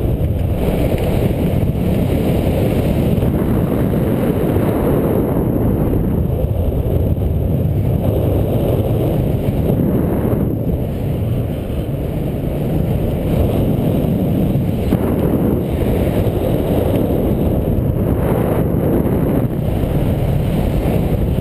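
Wind rushing over the microphone of a skydiver's camera during a descent under an open parachute canopy, heard as a steady low rumble.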